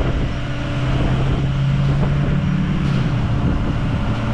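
An engine running steadily with a low drone, which grows stronger for a second or so around the middle and then eases back.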